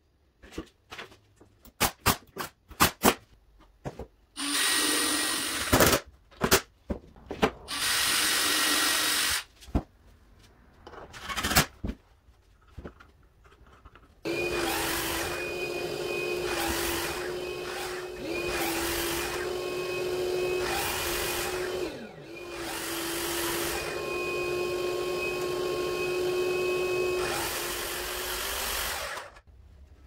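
A run of sharp snaps in the first few seconds, fitting a pneumatic brad nailer, then two short bursts of noise. From about halfway, a sliding miter saw runs with a shop vacuum pulling its dust, cutting small wooden pieces. Its motor slows and starts again twice and stops shortly before the end.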